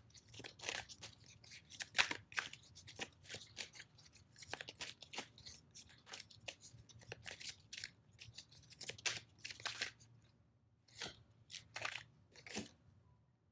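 A deck of oracle cards being shuffled by hand: a quick irregular run of soft card slaps and flicks, pausing briefly about ten seconds in, then a few more as the cards are spread out.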